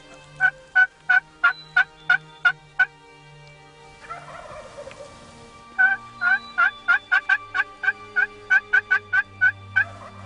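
Pot-style friction turkey call worked with a striker, imitating hen yelps: a series of about eight yelps, a pause, then a longer run of about fifteen yelps that quicken toward the end.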